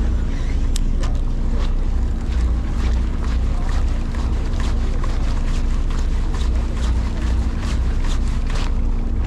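A large fishing boat's engine running steadily, a low rumble with a steady hum, with many short irregular clicks over it.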